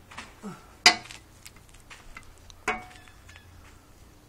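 Grease gun being pumped on a pickup's front-end grease fittings: two sharp metallic clicks with a short ring, about two seconds apart, the first the louder, with a few fainter ticks between.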